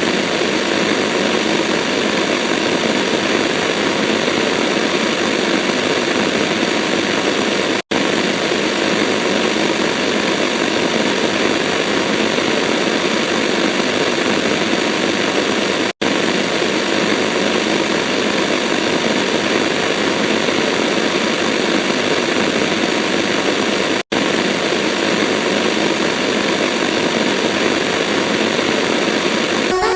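Loud, steady roar of noise with no tune or pitch, an eight-second clip looped about four times with a split-second dropout between repeats.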